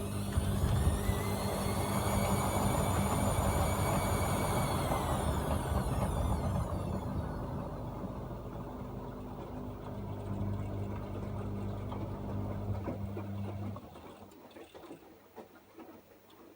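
AEG Öko-Lavamat 74780 washing machine running, its drum motor whining up in pitch and back down again over a low steady hum. The machine cuts off abruptly near the end, leaving only faint clicks.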